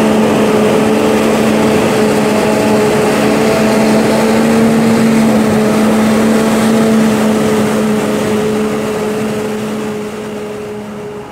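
Claas Jaguar 870 self-propelled forage harvester chopping maize, its engine and chopper giving a loud, steady drone with a constant hum, mixed with the diesel engine of a New Holland tractor pulling a silage wagon alongside. The sound gets a little quieter near the end.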